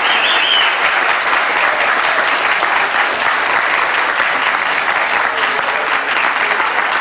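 A group of children clapping their hands, as a dense, even patter of applause.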